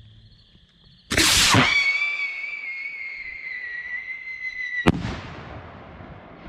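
Whistle rocket: a loud rush about a second in, then a shrill whistle that drops a little in pitch and holds steady for about three seconds. The whistle is cut off by one sharp bang as the rocket bursts, and the bang echoes away.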